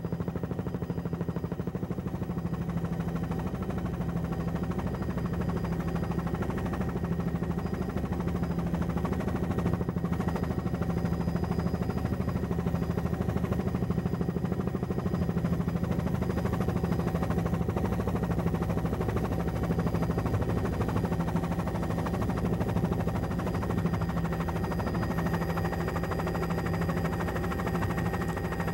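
Steady low drone of an aircraft's engine, heard from inside the cabin, with faint steady whines above it.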